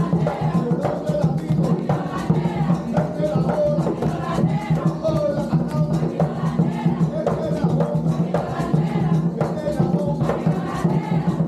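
Live bomba music: several barrel drums played together in a fast, steady rhythm, with a voice singing over the drumming.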